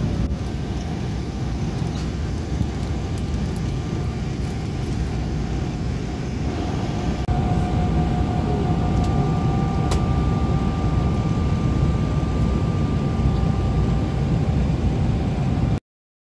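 Airliner cabin noise in flight: the steady low roar of the engines and air rushing past the fuselage, with a faint steady whine above it. It cuts off abruptly near the end.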